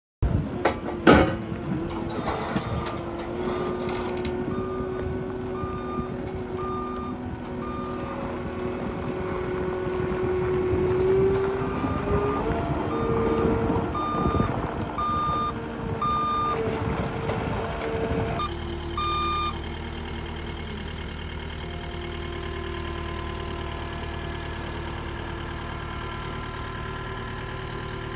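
A vehicle's reversing alarm beeping about once a second over a running engine, after a sharp knock just after the start. The engine's pitch rises partway through, and about two-thirds of the way in the beeping stops, leaving the engine idling.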